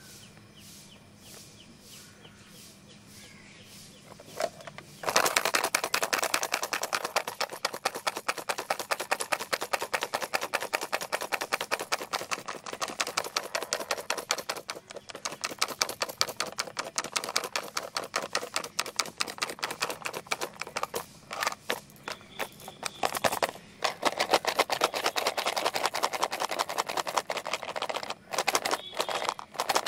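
A plastic pencil box shaken hard, its lid and contents rattling in a fast, dense run of clicks. The rattle starts about five seconds in and stops briefly twice near the end.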